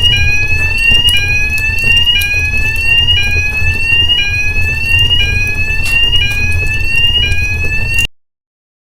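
Electronic alarm sounding a rising tone that repeats about once a second, over a low rumble. It cuts off abruptly about eight seconds in.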